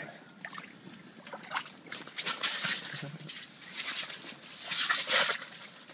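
Channel catfish being hauled up through a hole in the ice, water splashing and sloshing as it thrashes, with water trickling off it. The loudest splashing comes about two seconds in and again about five seconds in.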